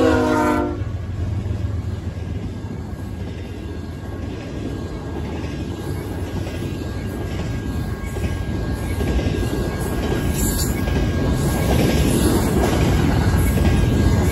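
Deep-toned Nathan K5HL five-chime air horn on a BNSF ES44C4 locomotive cuts off just under a second in. Then the locomotive and double-stack intermodal cars roll past close by: a steady heavy rumble of wheels on rail that grows louder toward the end.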